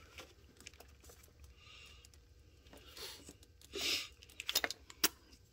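Faint handling noise of fingers working a plastic multi-pin wiring connector at the engine computer (PCM), with a few sharp small plastic clicks near the end.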